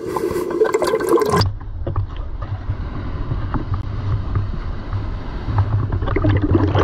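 Seawater washing and sloshing around a waterproof camera floating at water level, heard muffled with a deep rumble and small splashes. For the first second and a half there is a brighter rushing hiss of breaking-wave spray that stops suddenly.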